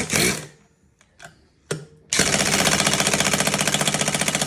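Impact wrench hammering on a rusted oil-pan bolt that won't break loose. There is a short burst right at the start, then from about two seconds in a steady, rapid hammering that goes on to the end.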